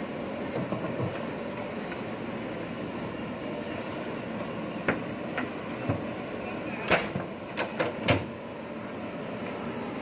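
JCB backhoe loader's diesel engine running steadily as the machine drives with its front loader bucket. A few sharp knocks come through, one about five seconds in and several close together around seven to eight seconds.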